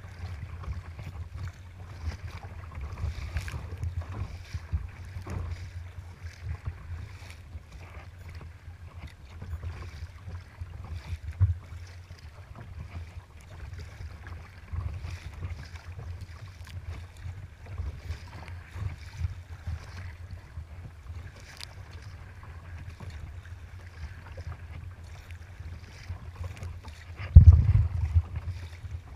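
Choppy sea water slapping and splashing against the bow of a sea kayak, under a steady low rumble of wind buffeting the microphone. A louder wave slap comes near the end.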